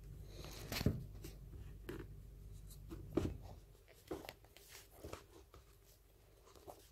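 A utensil faintly tapping against a bowl as an egg is mixed in. Sharper knocks come about one and three seconds in, a few lighter ones follow, and it dies away near the end.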